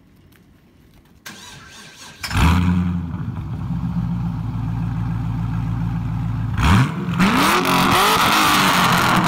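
A 2006 Pontiac GTO's 6.0-litre LS2 V8, breathing through long-tube headers, cats and an H-pipe, is started about two seconds in, catching with a loud flare and settling to idle. Near the end it is revved several times, the pitch rising and falling with each blip.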